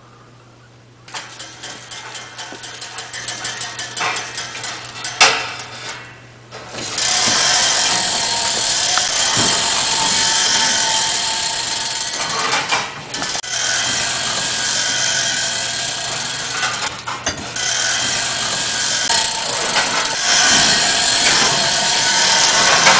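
Human-powered kinetic sculpture of salvaged bicycle wheels and hub caps, driven by a belt of plastic grocery bags, starting up about a second in with irregular clattering and knocks. From about seven seconds it settles into a steady, loud rattling run.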